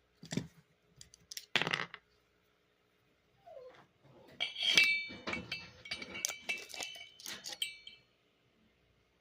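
Metal clinking: a steel screwdriver knocking and rattling against small metal pieces, a few separate knocks at first, then a busy run of ringing clinks for several seconds in the middle.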